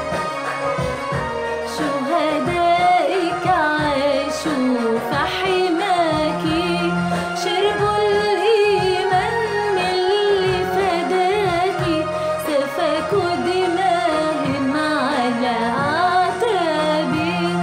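An Egyptian Arabic Christian hymn sung by female vocals over instrumental backing.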